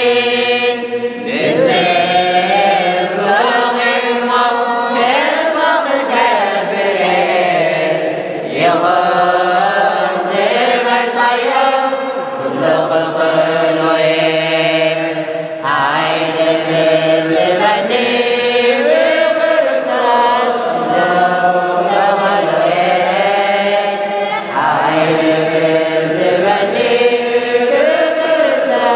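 Congregation of men and women singing an Eritrean Orthodox Tewahedo mezmur (hymn) together, in long held phrases that glide up and down in pitch.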